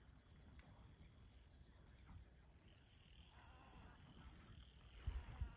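Faint, steady high-pitched drone of insects, with low rumbling on the microphone near the end.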